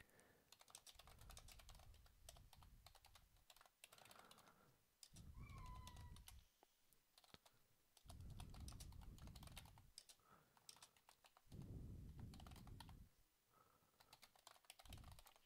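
Faint typing on a computer keyboard, the keystrokes coming in quick runs of clicks, with a few short spells of low rumble.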